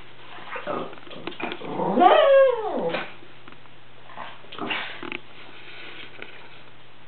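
A pet animal's drawn-out cry, rising and then falling in pitch over about a second, starting about two seconds in, with shorter noisy scuffling sounds before and after it.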